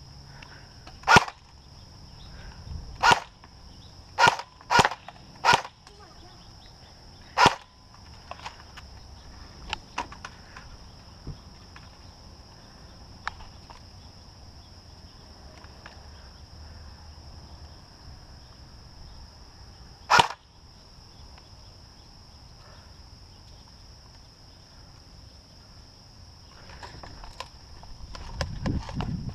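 Airsoft guns firing single shots as sharp pops: five in quick succession in the first six seconds, one more shortly after, and a last one about twenty seconds in.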